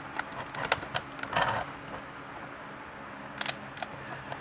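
Hard plastic blister packaging being handled and worked open: scattered clicks and crackles, with a short scraping rustle about a second and a half in and a few more clicks near the end.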